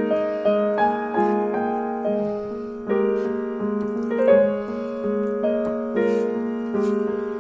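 Background piano music: a melody of single notes struck one after another and left to ring.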